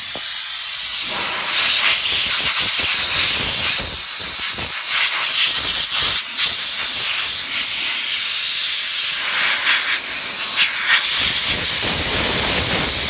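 Compressed air blowing from an air nozzle to clean out a car's console: a loud, continuous hiss that wavers in strength.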